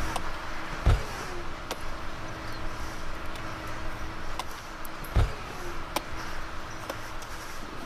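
Steady low rumble with a faint hum, broken by two dull thumps about four seconds apart, the first about a second in.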